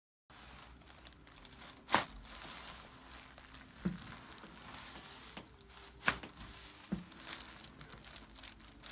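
Faint rustling and crinkling with about five sharp clicks scattered through it, the loudest about two seconds in.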